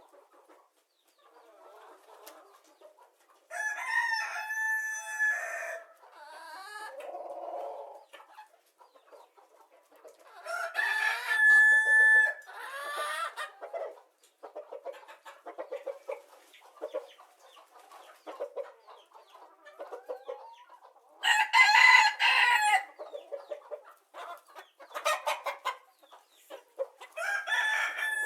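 Chickens: a rooster crows four times, each crow about two seconds long, with short clucking calls in between.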